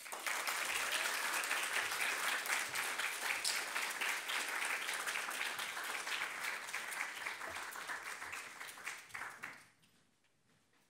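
Audience applauding, the clapping tapering off and stopping about a second before the end.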